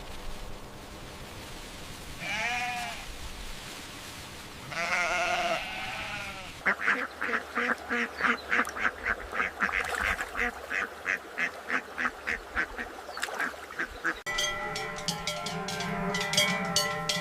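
Two drawn-out animal calls, the second longer, followed by bright metallic strokes in a steady rhythm of about three a second. About fourteen seconds in, the sound changes suddenly to several ringing tones sounding together.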